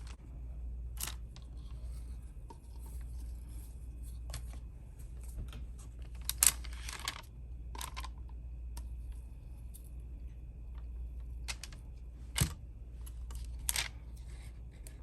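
Scattered light clicks and taps, about six of them, the loudest a little past the middle, from small craft items and tools handled on the work table, over a low steady hum.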